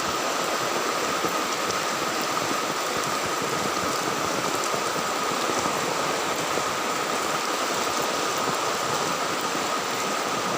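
Heavy rain falling: a steady, even hiss with one thin steady tone running through it.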